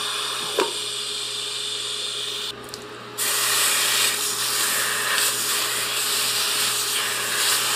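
An electric welding arc hissing steadily on a steel Dana 60 axle tube for about two and a half seconds. Then a wet rag of ice water sizzles and hisses on the hot weld beads: the tube is being quenched to shrink the heated side and pull the bent axle straight.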